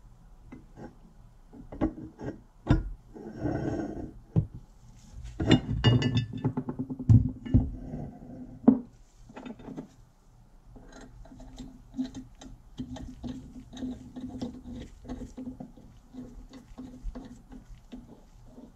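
Metal grinder parts handled on a wooden bench: sharp knocks and clinks as the cast-iron crank handle is set on the shaft, then from about ten seconds in a run of small clicks and scrapes as the retaining screw is threaded into the crank.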